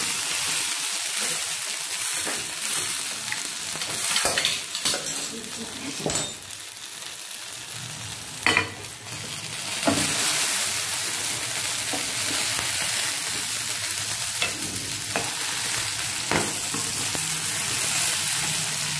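Fresh red chillies sizzling in hot oil in a non-stick pan as a spatula turns them, with a few sharp knocks and scrapes of the spatula against the pan. The sizzle gets louder about ten seconds in.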